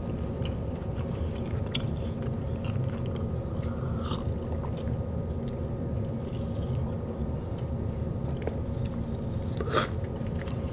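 A person chewing a mouthful of salmon and rice, with a steady low hum underneath and a sharp click near the end.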